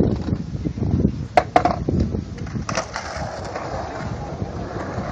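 Skateboard in a concrete skatepark: two sharp clacks of the board about a second and a half in and another about a second later, then the wheels rolling on concrete.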